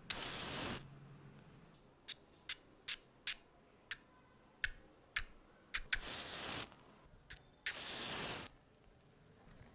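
Matches struck on a matchbox's striking strip: three short scraping strikes, each under a second, one at the start and two more near the end. In between comes a run of about nine small sharp clicks.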